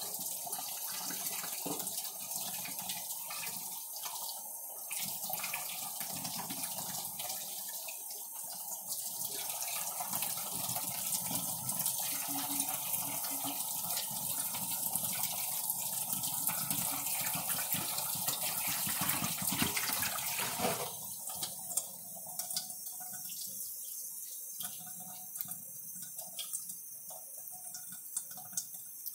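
Kitchen tap running in a steady stream into a stainless steel bowl in a metal sink, splashing. About two-thirds of the way through, the sound drops and turns to a quieter, lighter splashing with small ticks.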